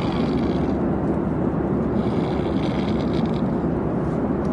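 A man snoring loudly, twice, each snore a rasping rattle, over the steady drone of an airliner cabin.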